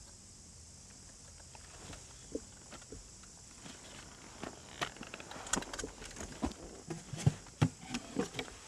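Irregular knocks, clicks and rustles. They start sparse and come thicker and louder over the last few seconds, with two sharp knocks about seven seconds in.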